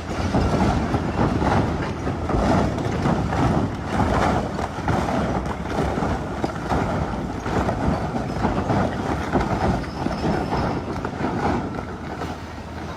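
A long chain of giant dominoes toppling one after another, a continuous rumbling clatter of heavy blocks striking each other that eases slightly near the end.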